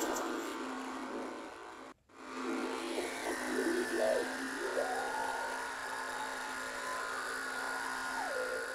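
A fly's buzzing: a steady drone that cuts off abruptly about two seconds in and starts again, with a wavering tone that slides up, holds and drops back in the second half.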